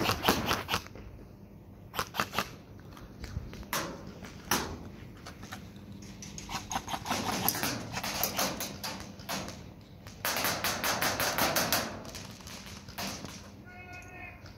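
Airsoft rifles firing in rapid bursts of sharp clicking shots, several short bursts and one longer burst of nearly two seconds about ten seconds in.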